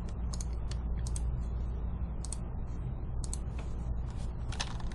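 Computer keyboard typing in irregular clicks, thicker near the end, as file names are entered for an STL export, over a steady low hum.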